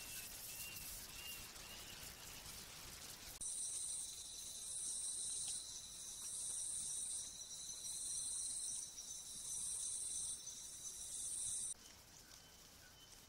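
Night-time insect chorus: a high, pulsing song in about six bursts of a second or so over a steady high trill, starting and stopping abruptly. Before it, a faint hiss with soft, evenly repeated short notes.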